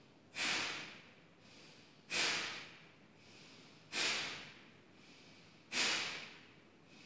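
Kapalbhati breathing: four short, sharp, forceful exhalations through the nose, about one every two seconds, each a sudden hiss that fades quickly, with quiet passive inhalations between.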